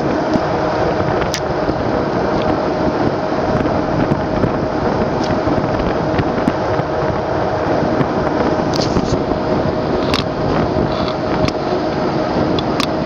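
Passenger boat's engine running steadily with a constant hum, under an even rush of wind and water as the boat moves.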